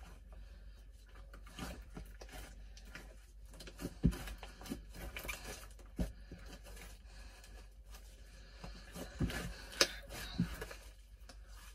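Glue-and-borax slime being kneaded, stretched and folded by hand while clay is worked into it: soft sticky tearing and crackling, with a few louder pops and slaps around four, six and ten seconds in.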